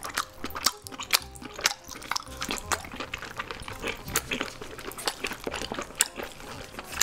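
Close-miked wet chewing and lip smacking of a mouthful of boiled octopus leg in sticky black-bean sauce: a dense, irregular run of sharp moist clicks and smacks.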